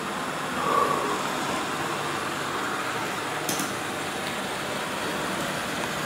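Robot vacuum cleaner running, giving a steady whir from its motor and brushes, with a brief louder sound about a second in.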